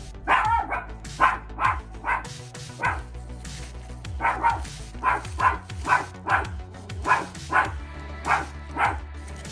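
Pet dog barking repeatedly, about two barks a second, with a short pause about three seconds in.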